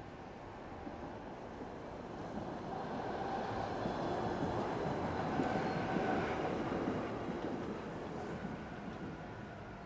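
A vehicle passing by: a rumbling noise that builds to a peak about halfway through and then fades away.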